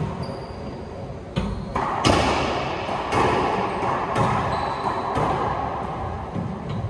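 Racquetball rally: the hollow rubber ball struck by racquets and hitting the walls and floor, sharp impacts about once a second, each echoing around the enclosed court.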